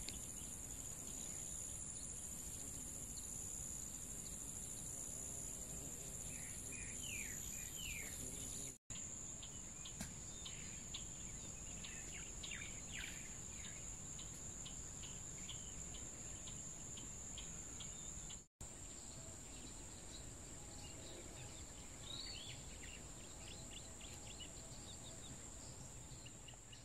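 Insects shrilling steadily at a high pitch, with birds chirping in short falling notes now and then, over a low background rumble. The sound cuts out for an instant twice, where one clip joins the next.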